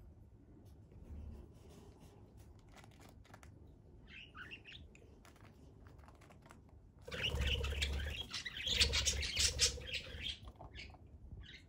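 A budgerigar chirps softly a few times about four seconds in, then from about seven seconds in comes a louder stretch of a few seconds as it flutters and flaps its wings. Faint ticks are heard in the quieter first part.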